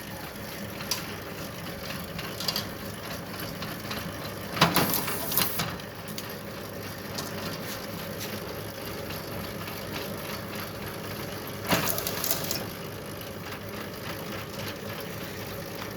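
A motor-driven 3-in-1 bamboo skewer shaving machine running steadily, with two louder rattling bursts, about five seconds in and again about twelve seconds in.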